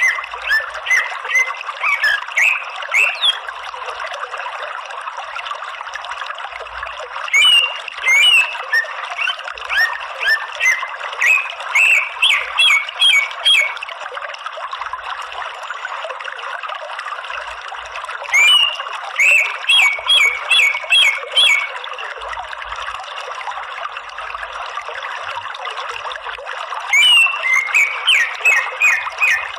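Greater green leafbird (cucak ijo) calling in bouts of rapid, sharp chattering notes, four bouts a few seconds apart, over a steady rush of running water.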